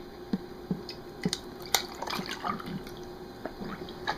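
Tea being poured into a cup, with small irregular clinks, drips and gurgles.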